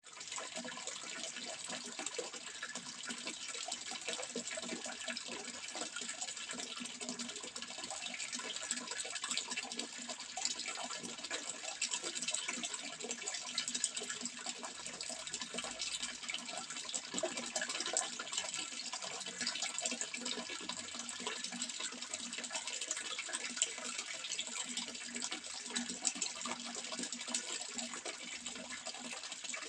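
Running water, a steady rush with many fine splashes that holds the same level throughout.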